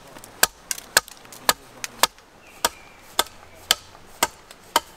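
Axe hewing a split wooden board stood on end on a chopping block: a steady run of sharp chopping strikes, about two a second, some lighter than others.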